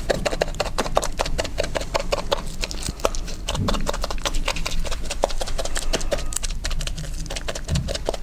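Small metal consolidation roller rolled back and forth over resin-wet chopped strand mat in a fibreglass mould, clicking rapidly and steadily as it works trapped air out of the laminate.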